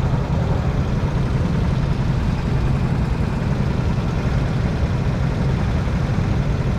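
Go-kart engines idling on the starting grid: a steady, low engine sound from the kart underneath, with the karts around it also idling.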